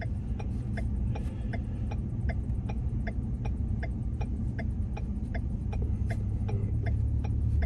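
Van engine idling with a steady low rumble, and a regular sharp ticking about three times a second over it.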